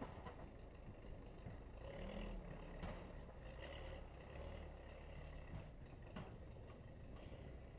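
Case 580C backhoe's engine running under load while pushing snow, the engine note swelling and easing as it works, with a few sharp knocks.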